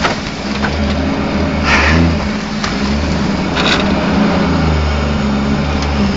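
Off-road 4x4's engine running at low speed under load, its pitch shifting up and down as the throttle changes. A few times, brush and branches scrape and crackle against the body.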